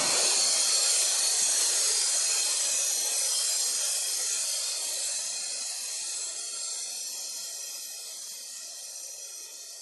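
A long hissing noise wash, brightest in the high treble, starts just as the electronic dance beat stops and fades slowly.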